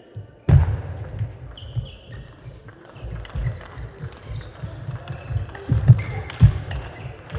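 Table tennis rally: the plastic ball clicking off rubber bats and the table in quick succession, with shoes squeaking and feet thudding on the court floor. The rally breaks out suddenly about half a second in, and the heaviest thuds come near the end.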